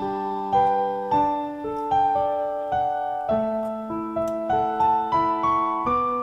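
Background music: a piano playing a slow, gentle melody over held notes, a new note about every half second.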